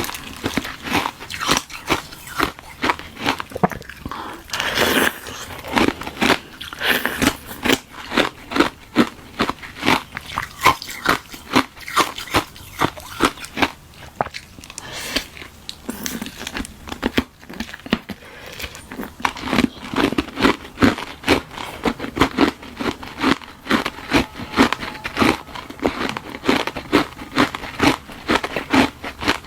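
Close-up crunching and chewing of hard ice frozen from tartary buckwheat tea: a steady run of crisp bites and crunches, a couple a second.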